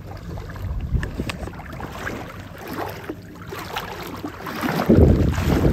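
Shallow seawater sloshing and dripping in small irregular splashes as a person wades and handles a hoop net at a staked net trap. Wind rumbles on the microphone, louder near the end.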